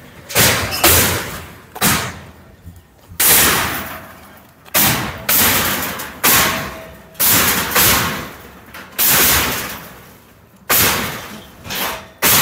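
Heavy blows striking metal as market stall frames are knocked apart in a demolition: about a dozen loud strikes at uneven intervals, roughly one a second, each dying away in a ringing tail.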